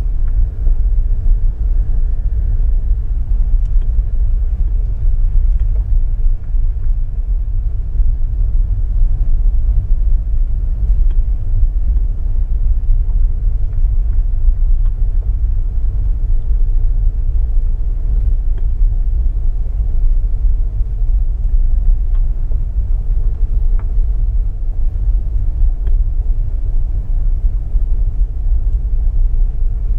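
Steady low rumble of a car on the move: road and engine noise from the car the video is filmed in.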